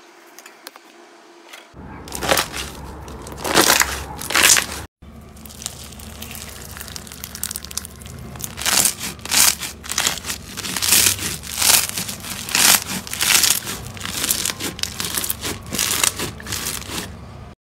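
Blue bead slime, clear slime packed with small beads, squeezed and pressed by hand, giving repeated bursts of crunchy crackling and popping. The first second or two is quieter.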